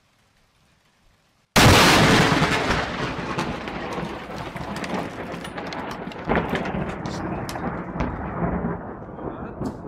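A very close lightning strike: a sudden, very loud thunder crack about a second and a half in, then a long rumble with scattered cracks that slowly dies away.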